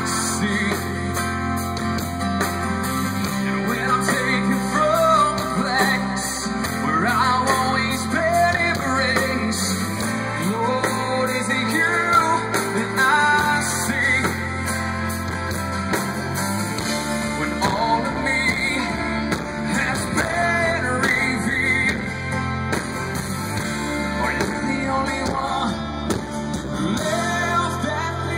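Live rock band playing through a PA: acoustic and electric guitars, bass guitar and drum kit, with a melodic line bending above the chords.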